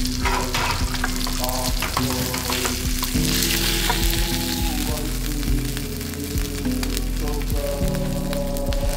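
Beef burger patty sizzling in hot fat in a frying pan, with a spatula scraping and clicking against the pan as it slides under the patty and lifts it out. Background music plays underneath.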